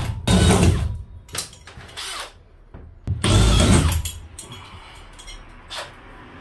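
Cordless drill run in short bursts, drilling out the rivets that hold a ceiling-mounted bracket. The longest and loudest burst comes about three seconds in, followed by quieter, shorter ones.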